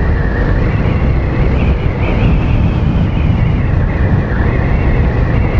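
Yamaha FZ25 motorcycle being ridden at a steady speed, its single-cylinder engine running under a heavy, even rumble of wind on the microphone.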